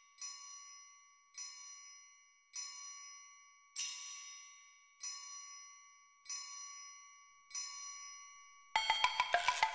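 A small metal bell or chime struck about every 1.2 seconds, each clear ring fading away before the next strike. Near the end a rapid flurry of overlapping bell-like strikes begins.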